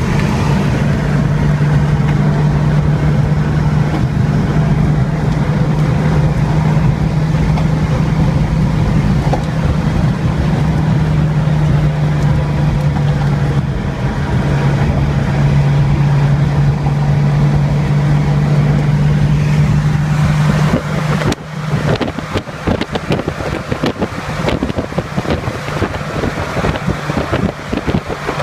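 A steady deep drone over wind buffeting the microphone. The drone cuts off about three-quarters of the way through, leaving the wind noise.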